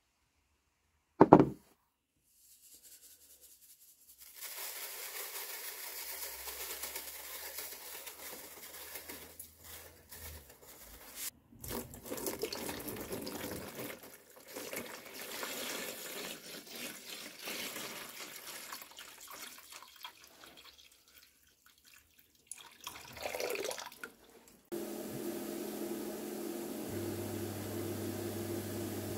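Water pouring in a steady stream into a plastic tub to fill an electrolysis bath for rust removal, with a few short breaks. A sharp knock comes about a second in. Near the end a steady electrical hum starts as the electrolysis power supply is switched on.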